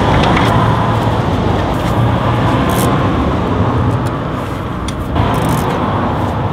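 Steady vehicle noise, like road traffic going by, with a few light metallic clicks from brake parts being handled.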